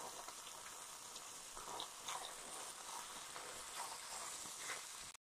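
Chicken mince and chopped onion sizzling faintly in hot oil in a non-stick pan, with soft strokes of a wooden spatula stirring through it. The sound cuts out abruptly just before the end.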